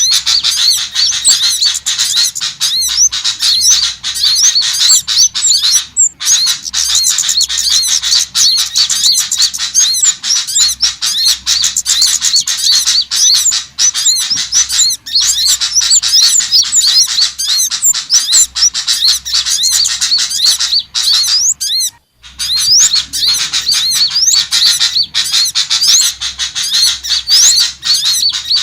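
Bird-lure recording of small songbirds: many fast, high chirps and twittering calls overlapping in a dense, unbroken chorus, used to call small birds in. It breaks off for a moment about 22 seconds in, then carries on.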